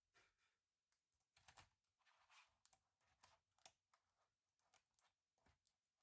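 Faint, irregular clicks and taps of small plastic and metal laptop parts being handled.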